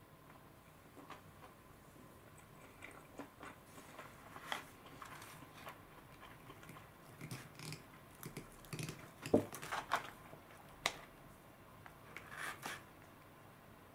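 Plastic spoon and fingers working food in a plastic bento tray: scattered light clicks, taps and short scrapes at irregular intervals, the sharpest a little past the middle.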